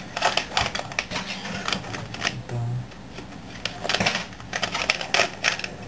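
Bak kut teh spice packet being torn and crinkled open by hand: a run of irregular crackles and rustles.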